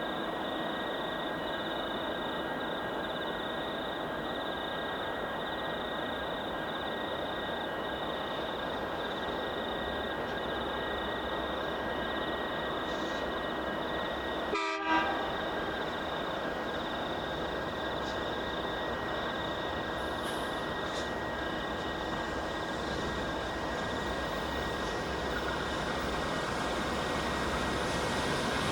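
Diesel freight locomotives running with a steady hum and a few steady whining tones, over a constant fast chirping of night insects. A deeper rumble builds slowly through the second half as the train draws nearer.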